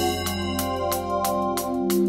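Background music: held keyboard chords over a quick, steady beat.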